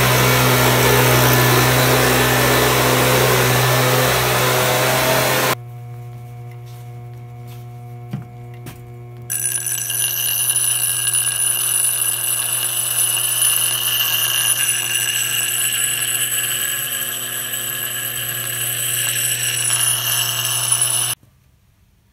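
Electric leaf blower running for about five seconds with a steady hum. After a cut, a sandstone grinding wheel driven by a treadmill DC motor turns with a steady motor hum. About three seconds later a steel edge tool is pressed against the stone, adding a high ringing grinding scrape that stops suddenly about a second before the end.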